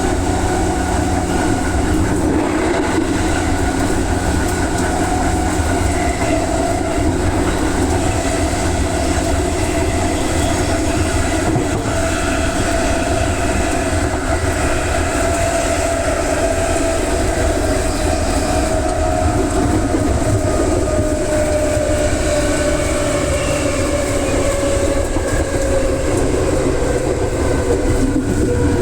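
Electric commuter train running on the line: a steady rumble with wheel clatter, and a motor whine that slowly falls in pitch.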